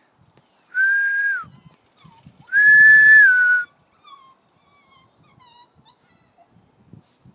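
A puppy whining in two long, high cries, each held on one pitch and dropping at the end, the second louder and a little longer. Several short, faint falling whimpers follow.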